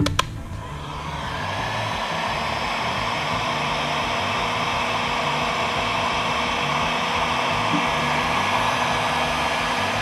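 Porter-Cable heat gun running on its high setting, heating a solder sleeve: a click near the start, then the blowing noise builds over the first second or two and runs steady, with a faint hum under it.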